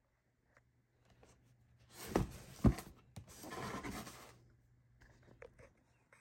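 A cardboard model-car box handled and set down on a corrugated shipping carton: two sharp knocks about two seconds in, then about a second of cardboard scraping and rustling as it is slid into place.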